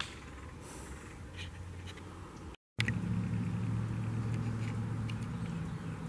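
Steady low engine hum, as of a motor vehicle running. It drops out for a moment a little before halfway, then returns louder.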